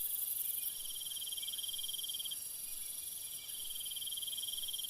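Steady high trilling like crickets, in two long stretches with a brief break about two and a half seconds in, over a faint high hiss.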